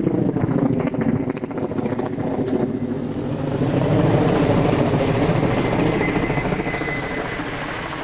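A loud, steady engine drone with a fast throb, swelling about halfway through, with a faint high whine near the end.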